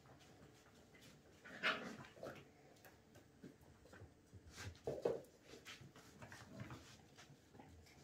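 Puppies yipping as they play: two short, loud yips, about one and a half seconds in and about five seconds in, with fainter yips between.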